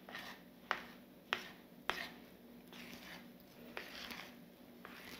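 A metal spoon mixing chipa dough in a bowl: three sharp clinks against the bowl about 0.6 s apart in the first two seconds, then softer scraping and ticks as the dough is worked.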